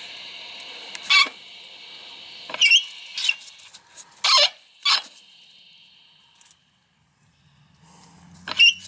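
Steady hiss of water running through an outdoor frost-free faucet into a garden hose, fading out about five and a half seconds in as the faucet is shut. Over it come several short, loud, high-pitched sounds.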